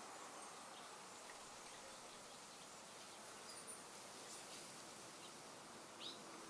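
Faint outdoor ambience: a steady soft hiss of air, with a few brief high bird chirps, the clearest one near the end.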